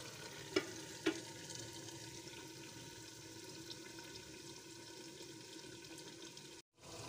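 Salan simmering in a steel pot on a low gas flame: a steady faint sizzling hiss. Two light clicks sound about half a second apart early on, and the sound drops out for a moment near the end.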